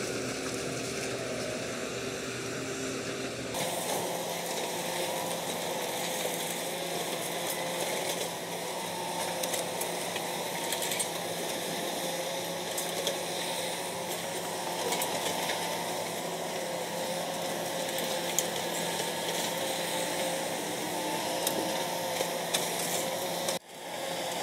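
Hydraulic demolition excavator running with a steady whine while broken masonry clatters and crumbles down. The sound changes abruptly about three and a half seconds in and drops out for a moment near the end.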